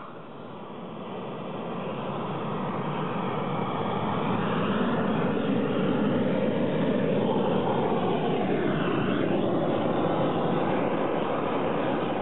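Propane roofing torch burning at full flame with a steady rushing roar, growing louder over the first few seconds, as it heats bitumen roofing membrane at the roof edge.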